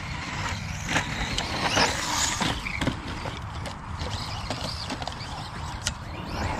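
Radio-controlled Traxxas Slash 2WD VXL short-course trucks driving laps, their brushless motors whining up and down in pitch as they rev. There are tyre noise and a few sharp clicks or knocks.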